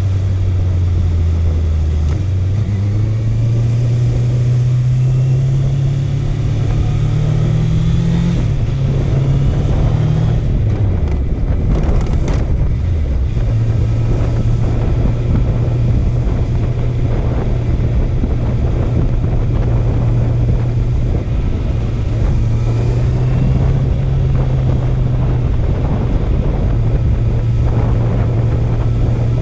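Honda CB650F's inline-four engine under way: it pulls up through the revs for several seconds, then rolls off with the pitch falling, and settles to a steady cruising pitch for the rest. Wind rushes over the microphone throughout.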